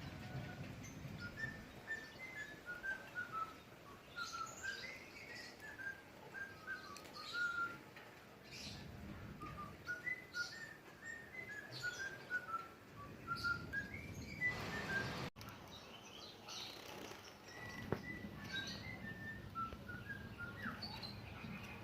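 Pet munia and small parrot chirping: a steady string of short, high chirp notes, with a brief rustle about two-thirds through.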